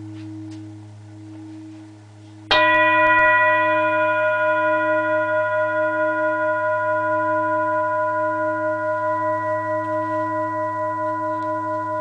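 A large, heavy, hand-hammered Nepalese singing bowl. Its deep low hum rings on with a slow wobble, then about two and a half seconds in it is struck. It rings out with many bright overtones that waver as they slowly fade.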